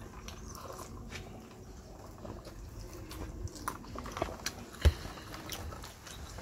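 People chewing and biting food close to the microphone: bánh xèo rolled in rice paper with greens, with scattered small wet clicks of mouths and food. There is one louder dull thump about five seconds in.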